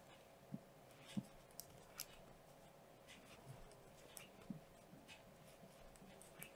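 Faint, irregular soft ticks and rustles of a crochet hook catching yarn as stitches are worked, over quiet room tone.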